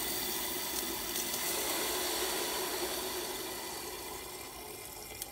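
Pressurised water escaping through the opened release valve of a hand-operated hydrostatic test pump as the tank's test pressure bleeds off. It makes a steady rushing noise that fades away over the last two seconds as the pressure falls toward zero.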